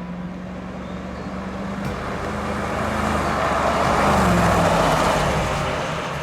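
A car's engine running with tyre and road noise, growing louder to a peak about four seconds in and then fading as the car passes by.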